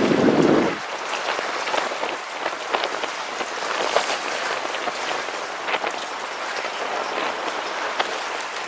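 Choppy sea water splashing and lapping against the side of a fishing boat: a steady hiss dotted with many small crackles, with a louder, lower rush in the first second.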